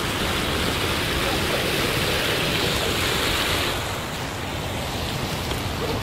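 Stream water rushing over rocks, a steady hiss that eases slightly about four seconds in.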